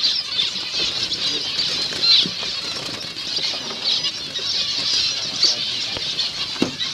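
Many caged finches chirping at once in a continuous, dense chatter, with a few soft knocks in between.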